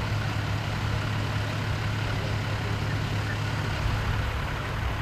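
Engine of a large emergency vehicle idling with a steady low hum.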